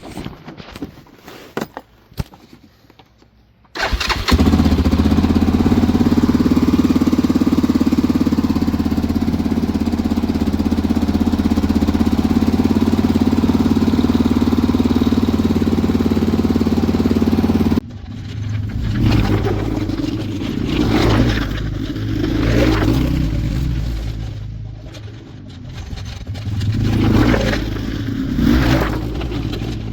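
Four-wheeler (ATV) engine starting about four seconds in after a few clicks and knocks, then running steadily. Past the middle the sound changes abruptly, and the engine revs up and down several times as the ATV is driven.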